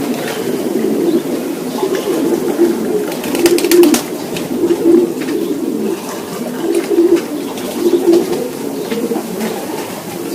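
Racing pigeons cooing inside the loft, several birds at once in a continuous low murmur with repeated louder coos. A few sharp clicks sound about three to four seconds in.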